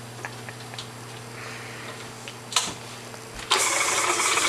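KitchenAid stand mixer switched on about three and a half seconds in, its motor running steadily as the beater creams butter and sugar in the steel bowl. A sharp click comes about a second before it starts.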